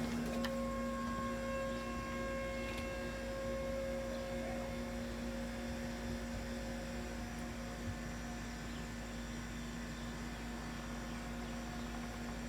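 A steady electrical hum made of a few constant tones over a low rumble, easing off slightly in level over the span; the higher of the tones fades out about halfway through.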